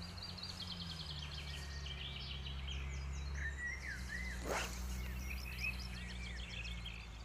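Songbirds chirping and trilling over a steady low rumble of wind on the microphone, with one brief whoosh about four and a half seconds in.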